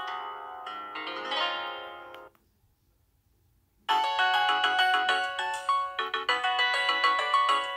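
Nokia 6085 mobile phone playing its preloaded ringtones: one melody fades out about two seconds in, and after a short silence a new, brighter ringtone melody starts a little past the middle and plays on.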